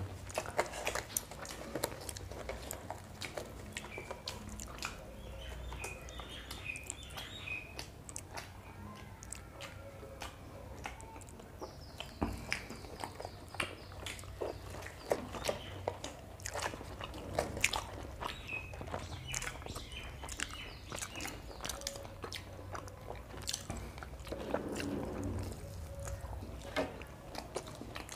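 Close-up eating sounds: two people chewing paratha and chicken curry with mouth smacks and small wet clicks, and tearing the flatbread by hand.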